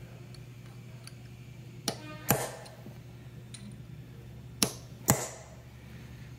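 Hammer and punch peening over a sludge plug in a Jaguar 3.4-litre crankshaft, metal on metal. There are two pairs of strikes, each a light tap followed about half a second later by a harder blow that rings briefly.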